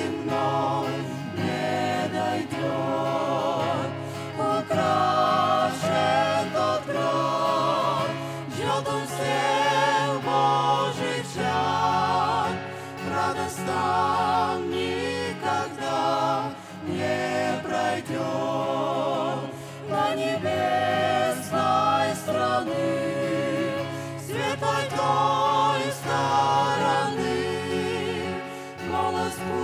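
A small mixed vocal group sings a Russian-language gospel hymn in harmony, with the women's voices leading with a wide vibrato. An acoustic guitar accompanies them.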